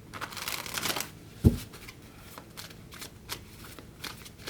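Tarot cards being shuffled by hand: a brief papery rustle in the first second, a single thump about a second and a half in, then a few light card snaps.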